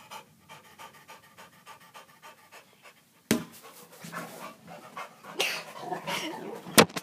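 Dog panting rapidly and hard, with a sharp knock about three seconds in and another just before the end.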